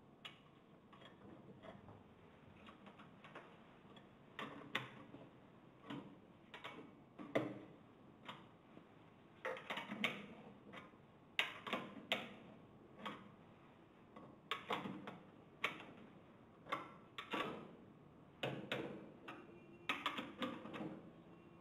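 Irregular metallic clicks and clinks, some in quick clusters, as nuts are fitted and tightened by hand and spanner on the tie rods of a stainless-steel GEA Hilge CONTRA Bloc pump casing.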